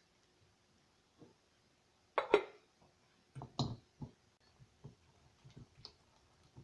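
Sharp clinks and knocks of a measuring cup and wire whisk against a stainless-steel mixing bowl, the loudest pair about two seconds in, followed by a few lighter taps as the whisk starts moving in the bowl.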